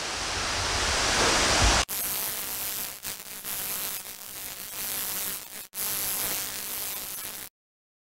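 Rushing outdoor noise of running water with rumble on the microphone, growing louder for about two seconds. It cuts off abruptly into a crackling, static-like hiss sound effect that flickers and briefly drops out, then stops dead into silence near the end.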